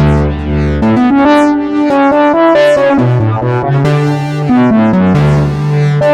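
Synthesizer keyboard music: a run of pitched notes and chords over a sustained bass.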